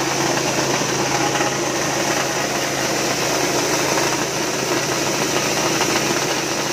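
Small petrol engine running steadily, belt-driving a portable dry-coffee huller as it hulls dried coffee beans.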